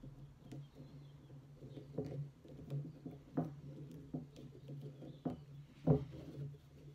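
Small irregular clicks and scrapes of wire threads being bent and wrapped by hand on a chicken-wire sculpture, the sharpest click about a second before the end, over a steady low hum.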